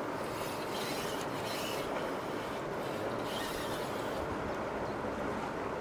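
Steady rush of fast-flowing river water, with some brief higher hissing rustles through the first four seconds.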